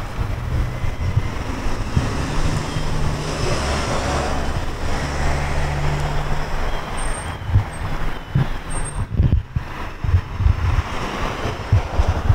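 A car's engine running close by as a steady low hum, with wind buffeting the microphone in irregular low thumps through the second half.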